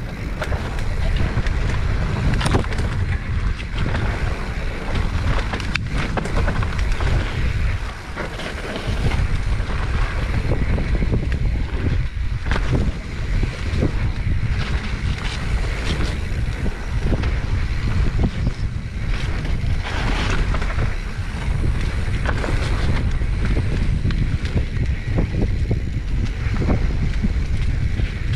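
Wind buffeting the microphone during a fast mountain bike descent, a heavy steady rumble, with many short knocks and rattles from the 2021 Giant Trance X 29 mountain bike going over rough trail; the noise eases briefly about eight seconds in.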